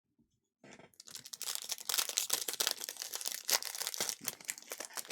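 Trading-card pack wrapper being torn open and crinkled, a dense run of irregular crackles and rustling starting just under a second in.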